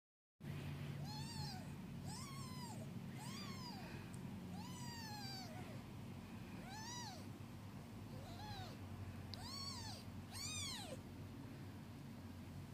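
Newborn kittens mewing: about eight short, high-pitched mews, each rising and then falling in pitch, roughly a second apart, with a longer mew about five seconds in and two close together near the end.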